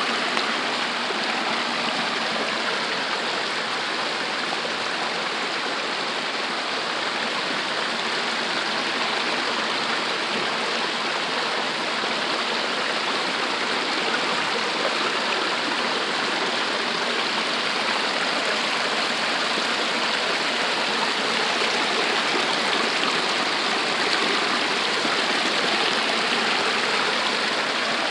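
Waterfall and its stream rushing steadily.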